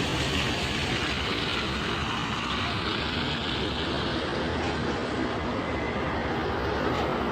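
Steady noise of a moving vehicle travelling along a road, engine and tyre noise running on without a break.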